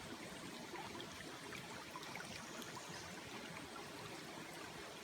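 Creek water flowing and trickling steadily, with faint scattered ticks.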